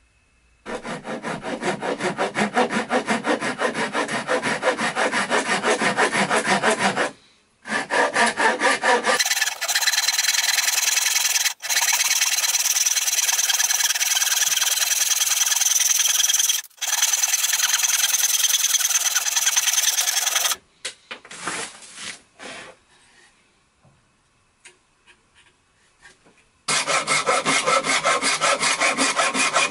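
Japanese pull saw cutting a board of torrefied (roasted) wood by hand in quick, even strokes. The sawing breaks off briefly around seven seconds in, stops about twenty seconds in leaving only a few light knocks, and starts again near the end.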